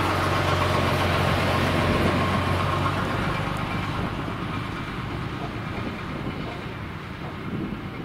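Diesel engine of a Setra coach driving past close by, its low hum fading as it pulls away, and a car then driving past.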